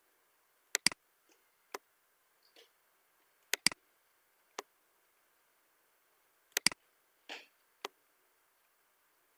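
Computer mouse clicks: three quick double-clicks about three seconds apart, each followed by a single click about a second later.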